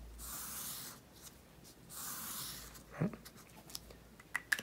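Felt-tip marker drawing long strokes across paper, two scratchy passes of about a second each. A short vocal sound about three seconds in, then a few light ticks near the end.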